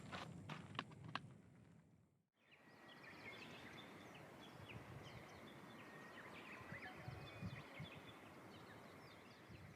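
Faint outdoor ambience with small birds chirping, many short high chirps over a soft hiss. A few soft clicks come in the first second, before a brief gap of near silence.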